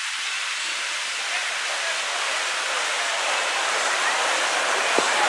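Water gushing steadily out of the exits of tube water slides into a splash pool, a rushing sound that grows a little louder toward the end. A brief click near the end.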